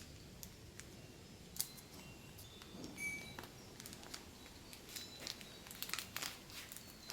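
Faint scattered clicks and light taps, with a few brief high chirps about three seconds in.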